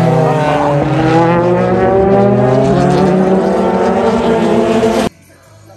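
JAF-F4 formula race cars accelerating through a corner, the engine note climbing steadily. It cuts off abruptly about five seconds in.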